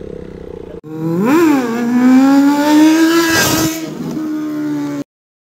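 Motorcycle engine revving: a quick blip up and back down, then a steady climb in pitch as it accelerates. It settles to a lower steady note about four seconds in and cuts off suddenly.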